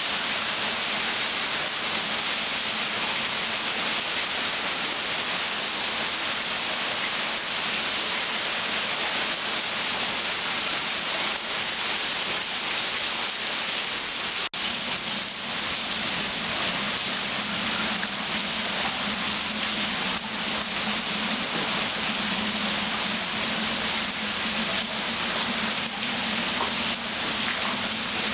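Heavy rain falling steadily onto standing floodwater and pavement, a dense even hiss of drops on water. The sound cuts out for an instant about halfway through.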